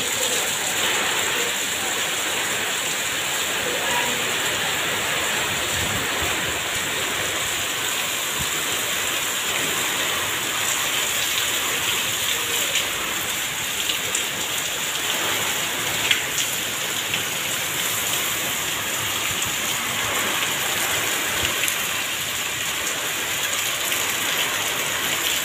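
Heavy rain pouring steadily onto bare earth and a wet paved lane: a dense, even hiss of drops striking the ground.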